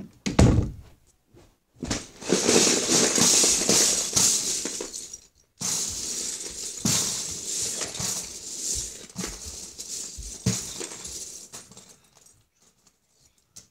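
Hands rummaging through a plastic tub full of loose Lego bricks: a dense clatter of plastic bricks knocking together, loudest from about two to five seconds in, then looser with scattered clicks. A heavy thump comes right at the start.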